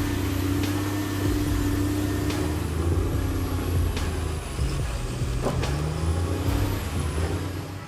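Heavy diesel engine of a forestry machine running under load, its pitch shifting a few seconds in, with several sharp knocks.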